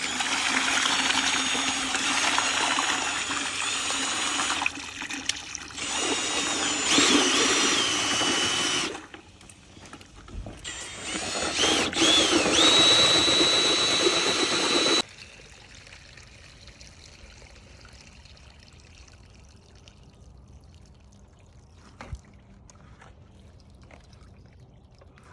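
Water from a hose pouring into a bucket of crushed gold ore as it is stirred into a slurry, with a whine that bends in pitch. It stops about 9 seconds in, starts again a second and a half later, and cuts off suddenly at about 15 seconds.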